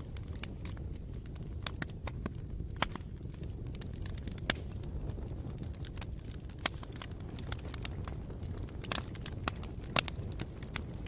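Wood fire burning with a steady low rumble of flames and irregular sharp crackles and pops, one loud pop near the end.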